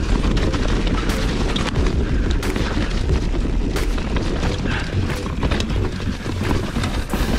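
Specialized Stumpjumper ST Alloy 29 mountain bike rolling fast down a leaf-covered dirt trail, heard from the rider's chest: a loud continuous low rumble of tyres over leaves, dirt and roots, broken by scattered sharp clicks and rattles from the bike over bumps.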